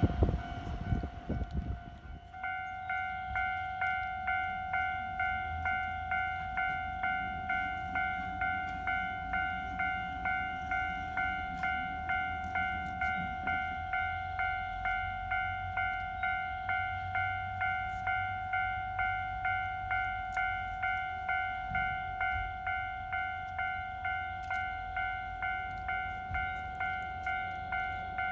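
Railway level-crossing warning bell ringing a steady run of evenly spaced dings, starting about two seconds in and keeping on. Over the first two seconds the wheel noise of a passing train dies away.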